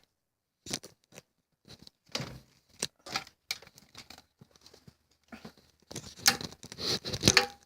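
Irregular clicks, taps and rustling from plastic toy figures being handled, loudest in a flurry near the end.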